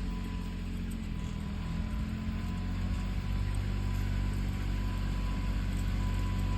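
Battery electric remote-controlled lawn mower running with a steady low hum.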